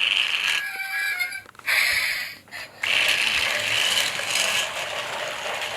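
Battery-powered Thomas & Friends toy train (Percy) running along its plastic track: a steady motor whir with the rattle of gears and wheels, broken for a couple of seconds near the start before it runs steadily again.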